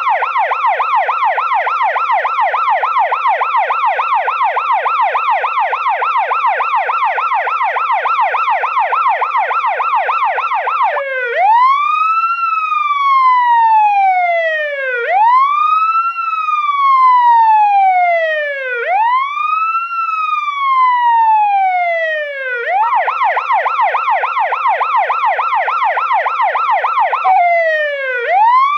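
Electronic police car siren switching between its two modes. It first gives a fast yelp, a rapid warble of several cycles a second, for about the first eleven seconds. It then gives a slow wail, each tone rising for about a second and falling for about two and a half. A short second stretch of yelp is followed by the wail again near the end.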